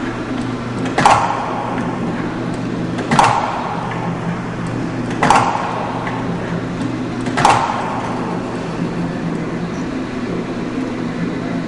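Four sharp knocks, evenly spaced about two seconds apart, over a steady low hum.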